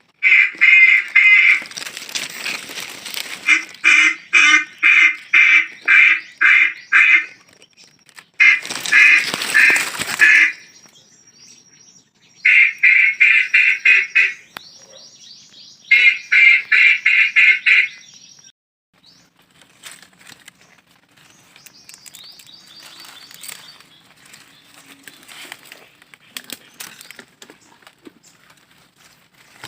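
Duck quacking calls, loud and close, in runs of rapid, evenly spaced quacks, about two to three a second, with short pauses between runs. The calls stop about two-thirds of the way through, leaving faint rustling.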